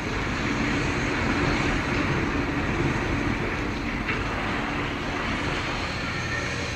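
Steady mechanical din of an offshore drilling rig's machinery: an even rumble and rush of noise, with a low hum running through the first half.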